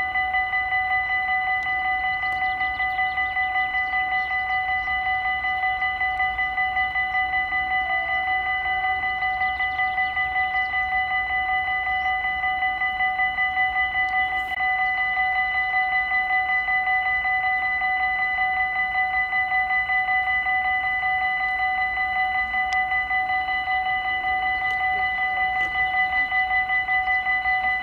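Dutch level-crossing warning bell ringing without a break, one bright metallic tone struck in a rapid, even rhythm. It signals that the crossing is closed for an approaching train.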